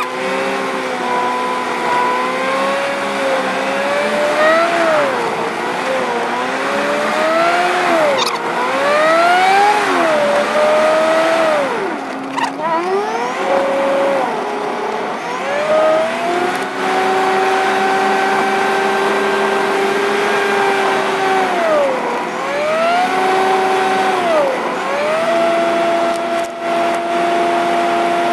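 Car engine heard from inside the cabin, its audio sped up so that it sounds like a Formula 1 car, a high whine. The pitch climbs and drops again and again, then holds steady for a few seconds after about 17 s and again near the end.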